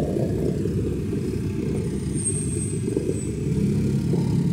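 Heavy diesel engine running steadily with a low rumble, a humming tone rising out of it near the end.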